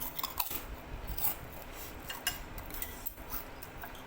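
Cutlery clinking against a dish in a series of short, irregular clicks.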